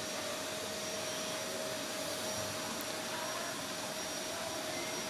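Steady hiss of a fan blowing air, with a faint constant hum running through it.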